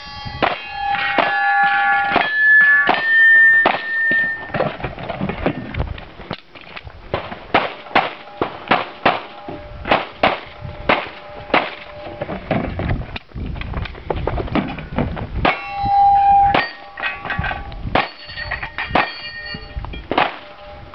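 A long string of pistol shots fired in quick succession, many of them followed by the ringing clang of steel targets being hit.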